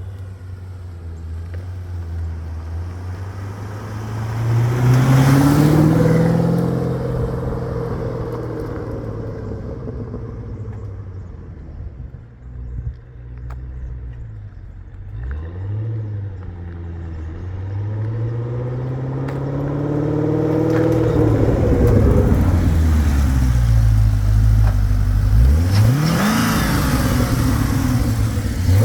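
The Corvette Z06's LS7 V8 engine running and being revved repeatedly, its pitch climbing and dropping several times, with the longest, loudest revs in the last third.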